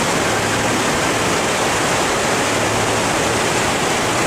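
Fast water rushing through the sluice gates of a ten-gate dam: a steady, loud roar of water, with a faint low hum underneath through most of it.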